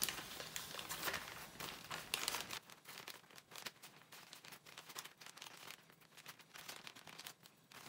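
Clear plastic zip-top freezer bag crinkling and rustling in the hands as raw sausages are packed into it. The crackle is irregular and quiet, busier in the first couple of seconds and then sparser.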